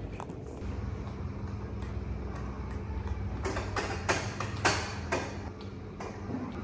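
A few sharp clicks or knocks in the second half, the loudest about three quarters of the way through, over a low steady hum.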